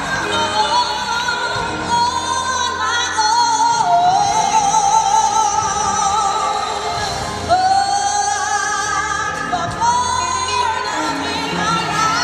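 Gospel choir singing, with long held notes that waver in vibrato and glide between pitches.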